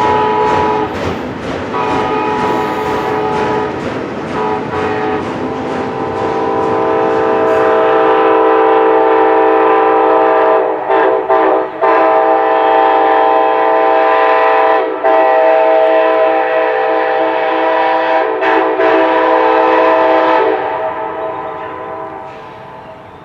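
Union Pacific SD70ACe-T4 locomotive's multi-chime air horn sounding a chord, first in several short blasts, then in long held blasts with brief breaks, cutting off about 20 seconds in. Rumble and clatter of the moving train lie under the horn early on.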